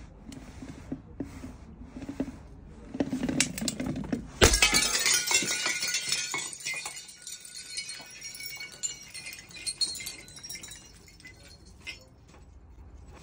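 Large glass bottle full of water beads bumping down concrete steps, then shattering with one loud crash about four seconds in. Glass shards and a mass of water beads then scatter and bounce over the steps with a dense clinking that dies away over several seconds.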